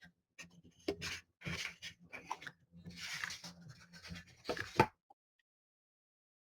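Packaging rustling and crinkling in irregular bursts as a boxed ceramic plate is unwrapped and handled by hand, stopping abruptly about five seconds in.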